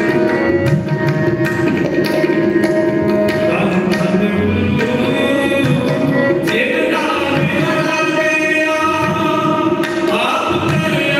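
Sikh kirtan: two harmoniums holding sustained chords over tabla, with a male voice singing from about halfway through.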